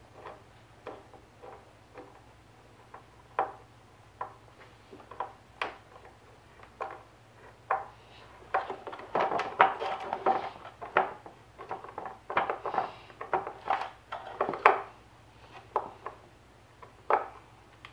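Phillips screwdriver driving a screw by hand through a plastic toboggan bottom: a run of irregular metallic clicks and ticks, sparse at first, coming thick and fast in the middle, then thinning out near the end.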